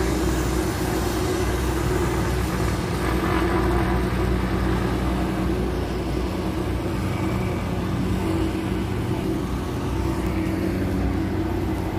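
Steady hum of car engines and road traffic, an even low drone with no single event standing out.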